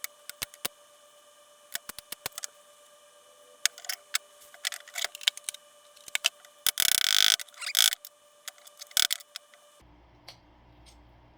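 Small metal parts of a rifle bolt being handled and worked apart: scattered sharp clicks and taps, with a longer scraping rasp about seven seconds in and a few more clicks after it.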